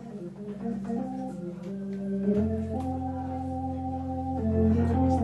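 Hammond-Suzuki XK3 digital tonewheel organ played through a Leslie 3300 rotating speaker: slow held notes changing about once a second, with a deep bass note and a full chord coming in about two and a half seconds in.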